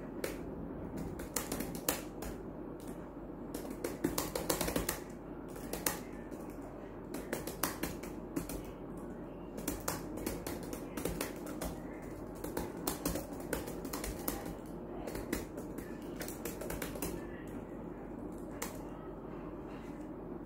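Dell laptop keyboard being typed on quickly: a rapid, irregular clatter of key clicks over a steady low hum, thinning out and stopping near the end.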